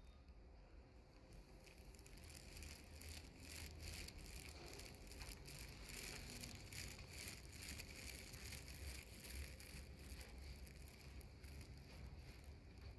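Faint, irregular rustling and scuffing close to the microphone, from a person walking while holding the camera: handling noise, clothing and footsteps.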